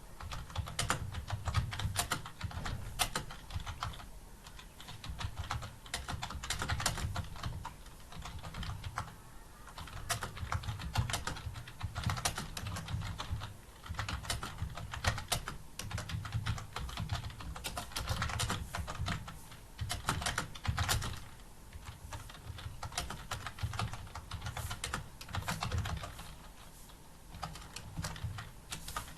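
Computer keyboard typing continuously, a steady stream of several keystrokes a second with short pauses every few seconds: fast touch-typing of a timed paragraph test.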